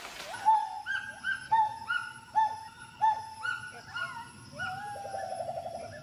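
Gibbon calling: a run of short whooping notes that rise at their start, about two a second, with a long note and a fast trill near the end.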